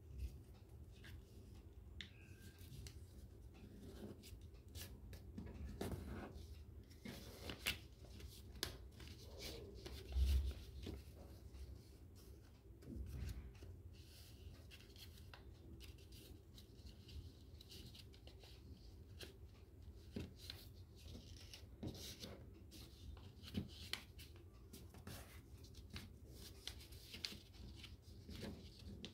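Paper being folded by hand: faint rustling and crisp crinkles as a sheet is turned and its creases are pressed flat with the fingers. A short low thump about ten seconds in.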